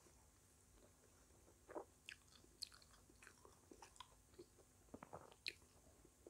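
Faint chewing of a crisp fried chicken spring roll: scattered small crunches and mouth clicks, the loudest about two seconds in and again near the end.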